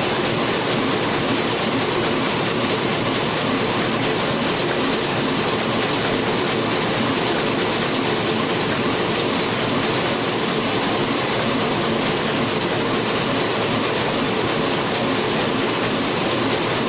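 Single-colour Heidelberg offset printing press running: a steady, unbroken mechanical noise from its turning rollers and moving parts.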